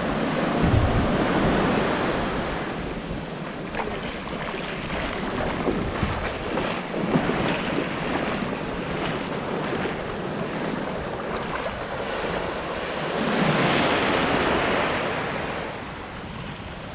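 Sea surf breaking and washing up a sandy beach, a steady rushing hiss, with wind buffeting the microphone. A wave washes in louder late on.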